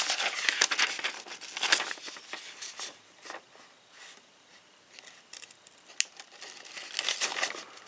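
A sheet of paper rustling and crinkling as it is handled, in irregular bursts with a quieter stretch in the middle.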